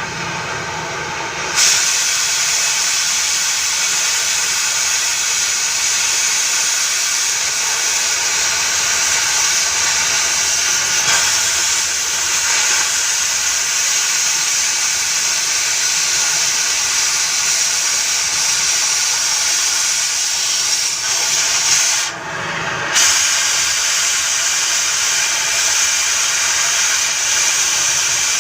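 Gas cutting torch hissing steadily as it cuts through a pipe. The hiss breaks off briefly about 22 seconds in, then resumes.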